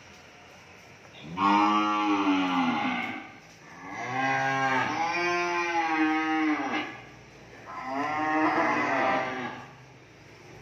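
A cow mooing three times, each long call lasting two to three seconds.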